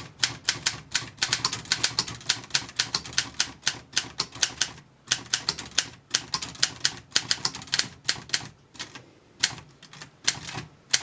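Adler Universal 20 manual typewriter being typed on: a quick run of key and typebar strikes, several a second, with short pauses about halfway through and again near the end.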